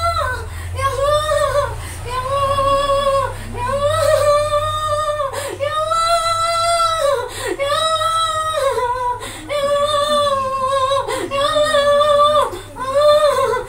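A high-pitched voice holding long notes of about a second each, most bending down in pitch at the end, over a low steady hum.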